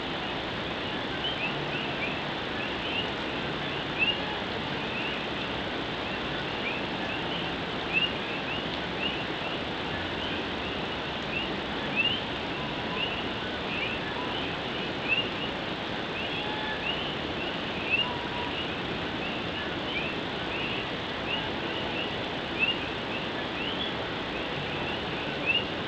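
Steady heavy rain falling on an old tin roof, with a chorus of common coquí frogs calling over it in many short rising chirps. Louder moments stand out every three to four seconds.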